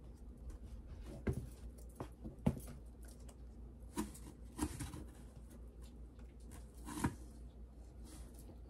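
Plastic lotion and cream bottles being handled and set down into a storage bin: about half a dozen scattered knocks and clatters among light rustling.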